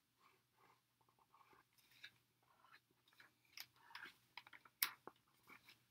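Faint pencil strokes scratching on drawing paper, short and irregular, with a sharper stroke near the end.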